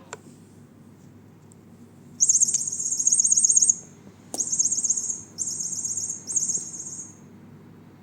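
Electronic cat toy chirping in four bursts of rapid, high trills, the first the longest. There is a sharp knock just before the second burst.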